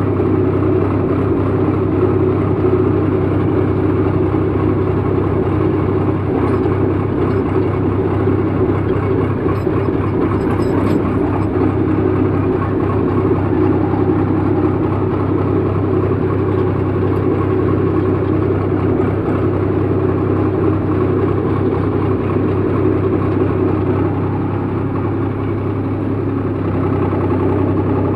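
Swaraj 735 FE tractor's three-cylinder diesel engine running steadily while the tractor drives in high second gear.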